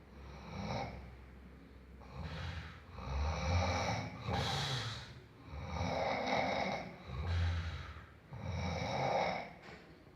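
A sleeping person snoring: a run of about seven rough breaths in and out, each lasting about a second, with a low rumble under a breathy hiss.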